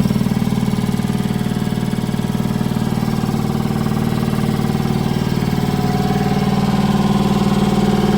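Ingersoll Rand 7100E two-stage piston air compressor, driven by a 15 hp three-phase electric motor, running steadily with a rapid even pulsing from the pump. A higher steady tone joins in about five and a half seconds in.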